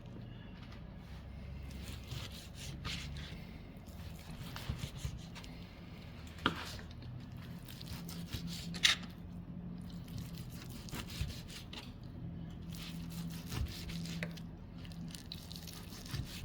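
Knife slicing through a cooked chuck roast on a cutting board, with soft scraping, sawing strokes and a few sharp knocks of the blade on the board, two of them louder, about six and nine seconds in.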